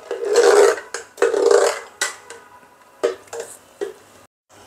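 A long metal spoon stirring mango sharbat in a glass jug: two longer stretches of sloshing stirs in the first two seconds, then a few light clinks of the spoon against the glass.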